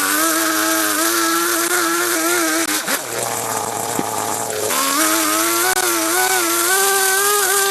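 Chainsaw engine running at high speed, its note wavering. A little under three seconds in, the note gives way for about two seconds to a rough rushing sound before the engine note comes back.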